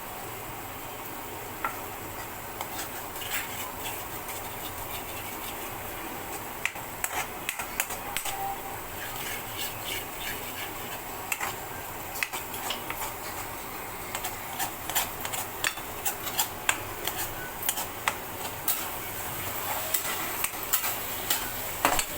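A utensil stirring and scraping a thick ginger-and-jaggery paste around a kadhai, with frequent clicks and scrapes against the pan over a steady hiss. The strokes grow more frequent partway through.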